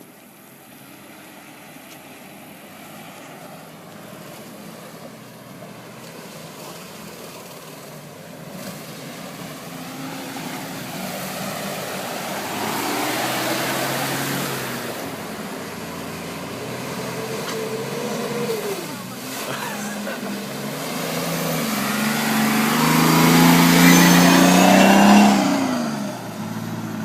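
Four-wheel-drive vehicles driving through a creek one after the other, engines revving as they push through the water, with splashing. The first passes loudest about halfway through; the second, louder still, near the end, its engine note falling away as it climbs out.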